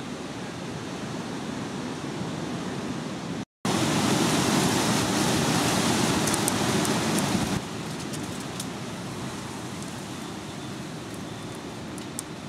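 Steady rushing outdoor noise. It breaks off briefly about three and a half seconds in, comes back louder for about four seconds, then settles, with a few faint ticks near the end.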